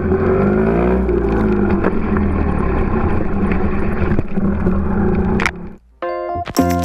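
Trials motorcycle engine revving, its pitch rising and falling about a second in, until it cuts off about five and a half seconds in. Music starts near the end.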